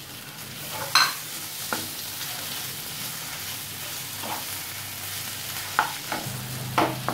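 Duck eggs and onion masala sizzling in a hot nonstick frying pan while a spatula stirs them. About five sharp scrapes and knocks of the spatula against the pan stand out over the steady sizzle.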